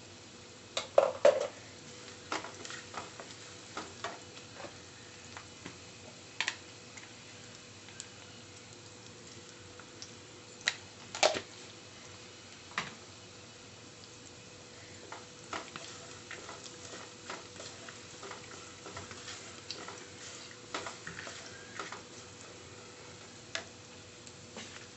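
Wooden spatula stirring chopped onions and chillies frying in oil in a nonstick pan: a faint sizzle under irregular taps, knocks and scrapes of the spatula against the pan, the loudest knocks about a second in and about eleven seconds in. A faint steady hum runs underneath.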